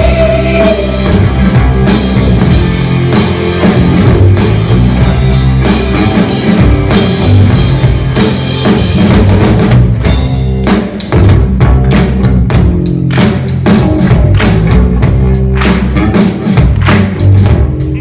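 Live rock band playing an instrumental passage: a drum kit keeping a steady beat under electric guitars, bass and keyboards, loud and full.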